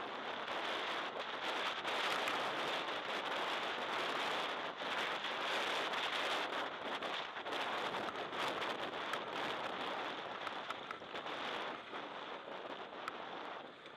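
Steady rush of wind and dirt-track noise picked up by a camera mounted on a motorcycle at speed, with scattered ticks and rattles throughout; no clear engine note stands out. It eases off a little near the end.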